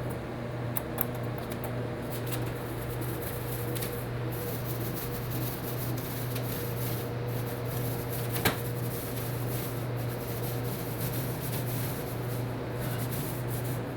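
Paint roller rubbing over a wall, with a steady low hum behind it and a sharp click about eight and a half seconds in.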